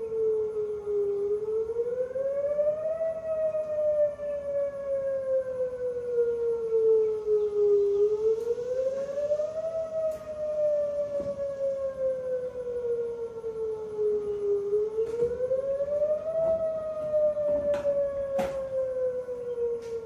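Whelen outdoor warning siren sounding its wail test tone. The pitch climbs over about two seconds, then glides slowly down over about five, and this happens three times. There is a sharp click near the end.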